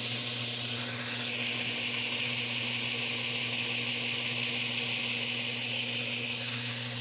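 BuckTool 2x42 variable speed belt grinder running unloaded on its first power-up with the belt fitted: a steady motor hum under a loud hiss from the belt.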